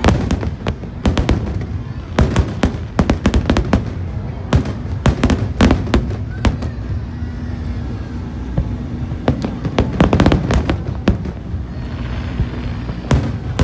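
Aerial fireworks bursting: sharp bangs in irregular rapid volleys, some quick strings of reports close together, with faint whistling glides between the bursts.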